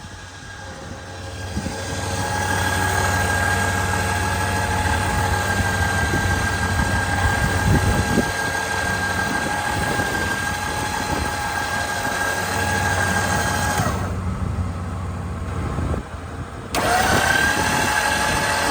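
Smittybilt electric winch motor running with a steady whine as it spools winch rope back onto the drum under tension, over a low steady hum. It stops about three-quarters of the way through, then starts again a few seconds later, its whine rising as it spins up.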